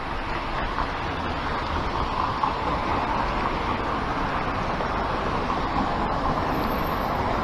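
Steady outdoor noise: an even rushing hiss over a low rumble, with no distinct events.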